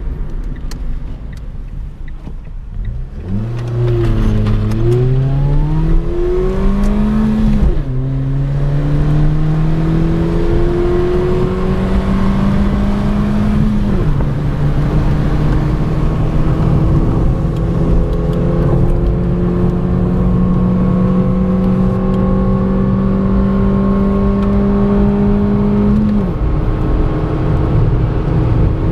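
Ford Fiesta Mk6 1.2-litre four-cylinder engine revving up and down briefly, then pulling away under acceleration through the gears. Each gear is a long rising pull ended by a sudden drop in pitch at the upshift, three times.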